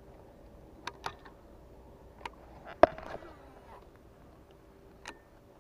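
A handful of sharp clicks and knocks over a faint steady hum, the loudest nearly three seconds in, typical of fishing gear and a handheld camera being handled.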